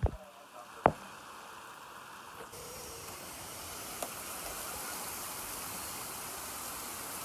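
A sharp click, then about two and a half seconds in a steady hiss of heavy rain comes in abruptly and continues.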